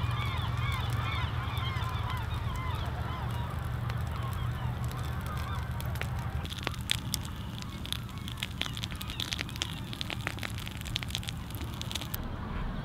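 Gulls calling repeatedly over a steady low rumble, the calls fading after a few seconds. In the second half, scattered sharp crackling clicks.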